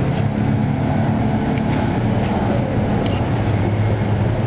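A steady low mechanical hum, with a few faint light scrapes of a metal fork on a wooden cutting board as cooked chicken is pulled apart.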